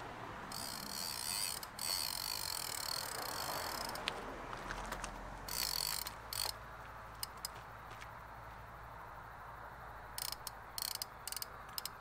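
Fishing reel ratcheting in bursts as line is wound and set after a cast: long runs of fast clicking in the first four seconds, a shorter run midway, then scattered clicks and a quick cluster near the end.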